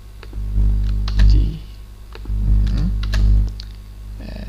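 Computer keyboard typing in short clicks, over background music whose low bass pattern repeats about every two seconds.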